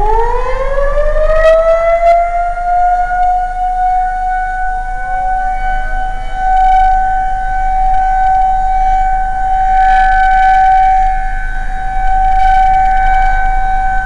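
Outdoor tornado warning siren winding up on its battery backup, its pitch rising steeply then settling into a loud steady wail that swells and fades slightly. A few seconds in, a fainter second siren winds up and joins it: the sirens start separately rather than together.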